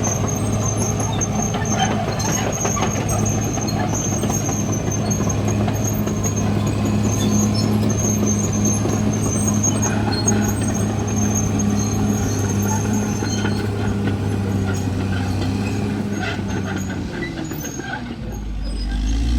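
Caterpillar D6R XL bulldozer's diesel engine running steadily under work, with a thin high whine above it. Near the end the engine speed drops and then picks back up.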